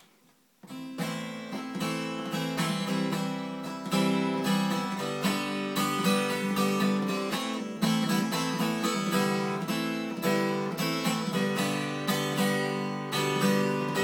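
Yamaha FG180 red label acoustic guitar, strung with light steel strings, strummed in a steady run of ringing chords that starts about half a second in.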